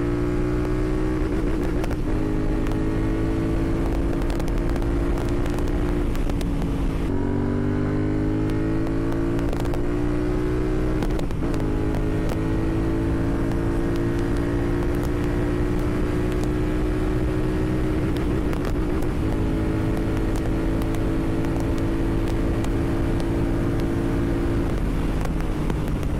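Royal Enfield Continental GT 650's parallel-twin engine running on the move through a Red Rooster Performance slip-on exhaust, a bassy note that climbs slowly in pitch and drops at gear changes about seven and eleven seconds in and again near the end. Wind blast on the microphone runs underneath.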